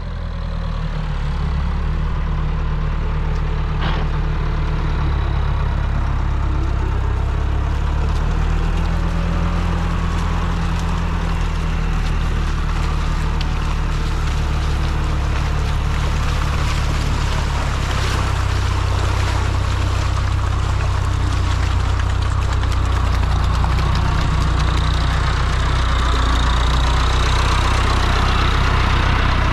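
Diesel engine of a farm tractor running steadily at low revs as it tows a dinghy on its trailer across wet sand and into the shallows.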